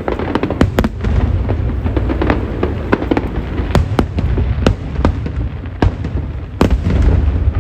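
Aerial fireworks bursting in quick succession: many sharp cracks over a continuous deep rumble of booms.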